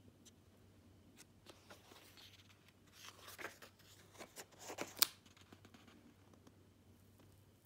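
Paper pages of a softcover booklet rustling as a page is turned by hand, with a sharp snap of paper about five seconds in.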